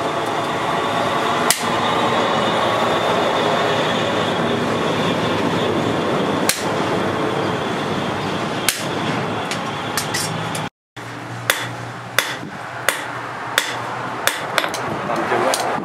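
Hammers striking red-hot steel on a stake anvil as a knife blank is forged. There are a few scattered blows over a steady rushing noise at first, then after a brief break the blows come quicker, about one or two a second.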